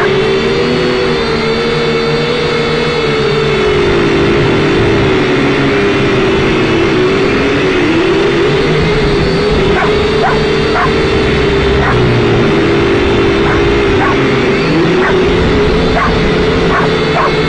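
Syma X5C quadcopter's propellers whining steadily, the pitch wavering up and down as the throttle shifts. A dog barks in short groups around the middle and again near the end.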